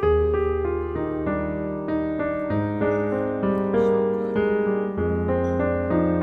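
Background piano music: a melody of struck notes moving along over sustained low bass notes.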